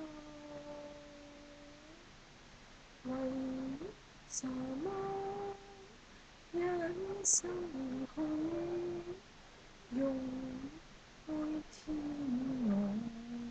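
A woman singing a slow Cantonese song solo, holding long steady notes in phrases of one to two seconds with short breaks between them. The first couple of seconds are softer.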